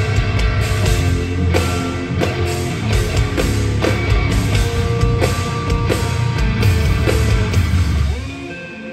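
Live instrumental progressive metal: distorted electric guitar over a busy drum kit, with a heavy low end. About eight seconds in the full band cuts out, leaving held tones ringing.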